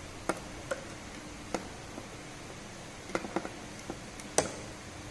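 Scattered small clicks and taps of fingers working the terminal screws and connecting wire on a Carey Foster bridge, irregular, with a sharper knock about four and a half seconds in.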